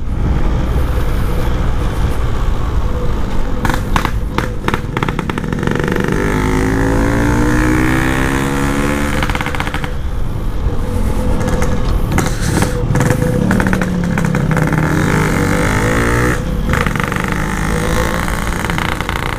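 Yamaha RX-King two-stroke motorcycle engine running under way, its note rising and falling twice as the rider works the throttle. Now and then wind buffets the microphone.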